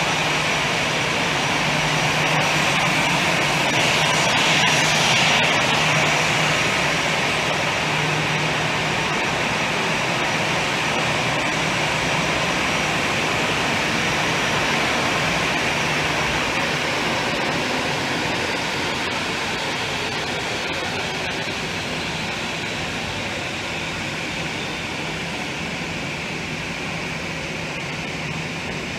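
Jet airliner engines: a steady rushing roar with a faint high whine. It swells to its loudest about five seconds in, then slowly fades.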